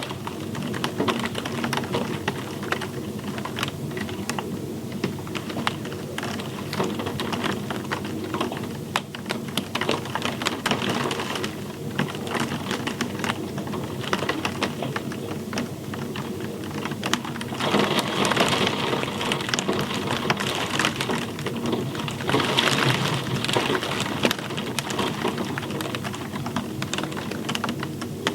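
Steady rain with close, crackling drops hitting a surface over a low, constant rumble. The rain comes down harder twice in the second half.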